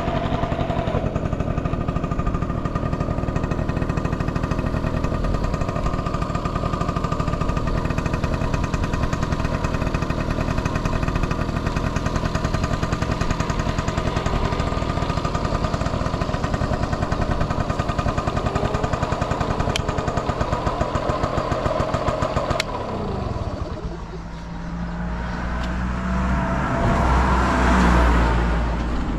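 Yamaha Passol 50cc two-stroke scooter engine running steadily with a rapid, even pulse and no abnormal noise, then cutting off suddenly about three-quarters of the way in. After it stops, a low rumble swells and fades.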